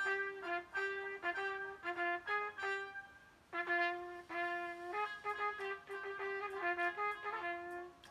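Solo trumpet playing a melody of short, repeated notes that step back and forth between a few close pitches, in two phrases with a brief pause about three seconds in.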